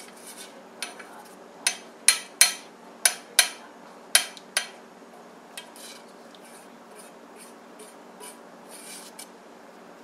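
Silicone basting brush knocking and scraping against a small stainless steel saucepan: about seven sharp clinks in quick succession in the first half, then a few faint taps and a short scrape.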